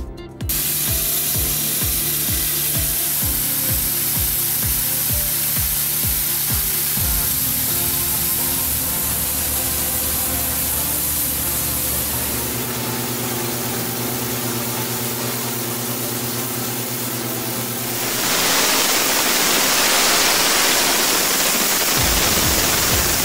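High-pressure water jet cleaning a ship's hull, a loud steady hiss that grows louder about eighteen seconds in, under background music with a steady beat.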